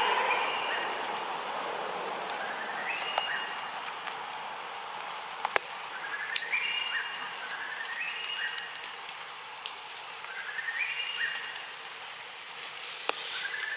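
Forest ambience in which an unseen animal repeats a call of a few quickly rising notes ending in a short held note, about five times, every two to three seconds. A few sharp clicks stand out, the loudest a little past halfway.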